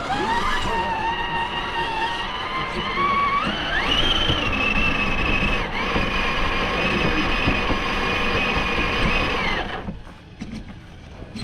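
RC rock crawler's electric motor and drivetrain whining under throttle, the pitch climbing at the start, stepping higher about four seconds in, then cutting off sharply near the end.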